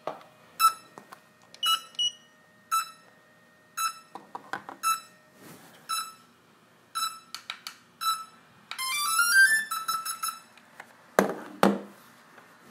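Drones and their remote controllers powering up: a short high electronic beep about once a second, then a quick rising run of startup tones about nine seconds in, and two knocks near the end.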